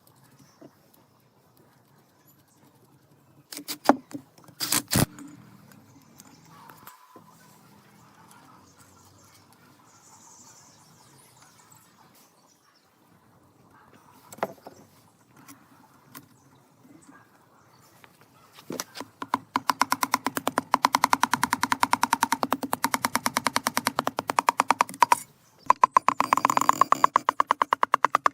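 A few sharp knocks, then a long, fast, even run of clicks from a tool at work on a jet ski under restoration. The clicks stop briefly near the end, then start again.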